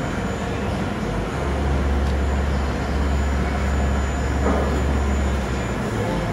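Andreoni Standard 12 multi-spindle copy-milling machine (pantograph router) running, its spindles milling wooden blanks: a steady mechanical noise. A deep low drone swells in about a second in and drops away near the end.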